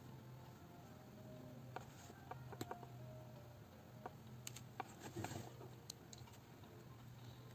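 Near silence: a low steady hum with a few faint scattered clicks and taps from a paintbrush working on paper, bunched between about two and six seconds in.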